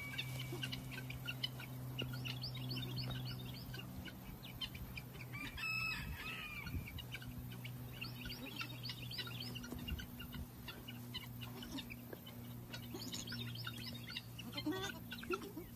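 Chicks peeping: a dense run of many short, high chirps, over a steady low hum. One louder call comes about six seconds in, and a few lower calls come near the end.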